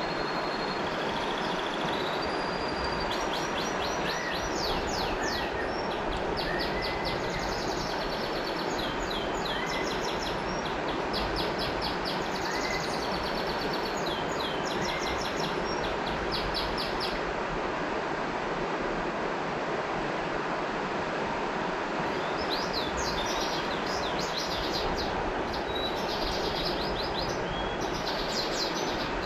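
River water flowing in a steady rush, with birds singing over it in runs of quick, high, repeated notes that stop for several seconds in the middle and then start again.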